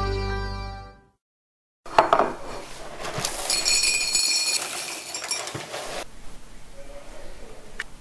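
Theme music fades out in the first second, then after a short silence dishes and cutlery clink and knock, like a spoon in a cereal bowl, with a high fluttering sound for a few seconds in the middle.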